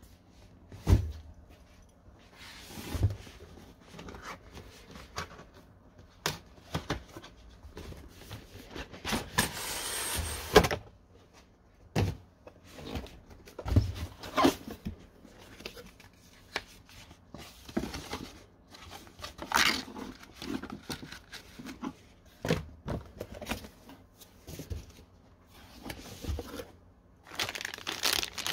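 Hands handling a graphics card's cardboard retail box and packaging during an unboxing: scattered knocks and thuds with scraping and rustling between them, and steady crinkling of packaging near the end.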